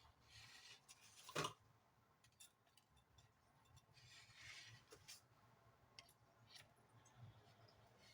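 Near silence with faint rustling and a few light clicks as corn dogs are set on a serving platter, one sharper knock about a second and a half in.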